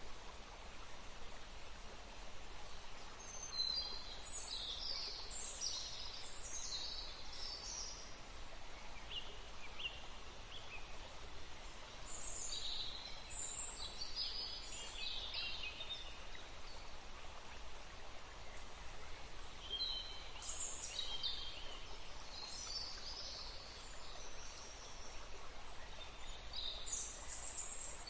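Steady running water with small birds chirping in the background, their high calls coming in several clusters a few seconds apart.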